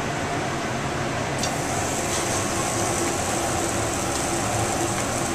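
A hanger steak sizzling on the grate of a gas grill over the steady rush of the burners. A brighter hiss comes in about a second and a half in and holds steady.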